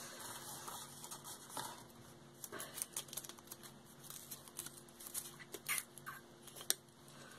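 A folded paper slip being taken out of a plastic cup and unfolded by hand: faint, scattered paper rustles and small crinkling clicks over a faint steady hum.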